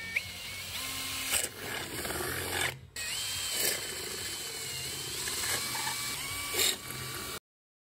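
Handheld electric drill boring small holes through a dried coconut shell, its motor whine shifting in pitch as the bit cuts. The sound breaks off briefly a little before the middle and stops suddenly near the end.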